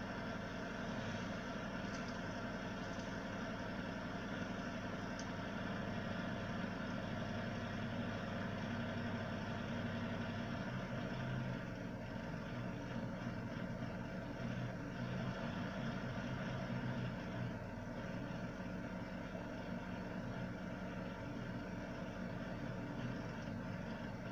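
Ig-Max 1607 500W PC power supply running: a steady fan whir with a constant hum.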